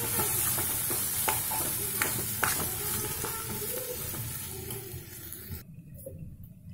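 Ivy gourds and ground masala paste being stirred with a spoon in a hot metal pan, sizzling, with scattered clicks and scrapes of the spoon against the pan. The sizzle cuts off suddenly near the end.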